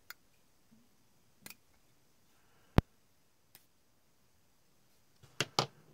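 X-Acto knife with a No. 11 blade nicking and trimming flash off a plastic model car part: a handful of sharp, scattered clicks, the loudest about halfway through and two close together near the end.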